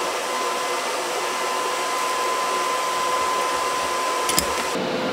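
Steady fan-like blowing hiss with a faint steady whine, typical of shop machinery such as a welding machine's cooling fan. A light click sounds near the end.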